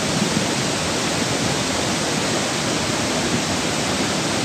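A lahar, a volcanic mudflow of water, sand and rocks, rushing down a river channel: a steady, loud rush of churning flood water.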